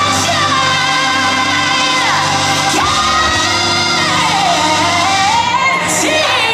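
Music with a solo voice singing long held notes that swoop down and back up, with vibrato, over sustained accompaniment.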